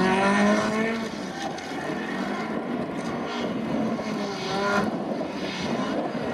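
Peugeot 306 rally car's engine at high revs on a special stage: the pitch climbs, holds and drops away about a second in, then rises again as the car accelerates around five seconds in.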